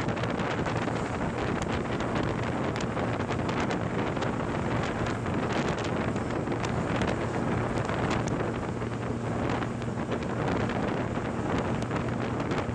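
Wind noise on the microphone while riding a classic 50 cc moped, with the moped's small engine running steadily underneath as a low hum.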